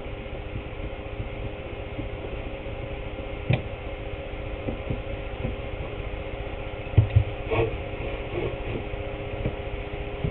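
A steady hum with a few short knocks over it: one about three and a half seconds in, and a louder pair about seven seconds in.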